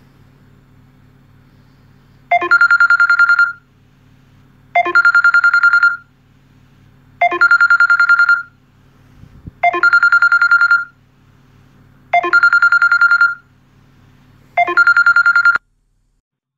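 Samsung smartphone ringing for an incoming call: six rings, each about a second long and made of a rapid warbling trill, repeating every two and a half seconds. The ringing cuts off suddenly near the end as the call is answered.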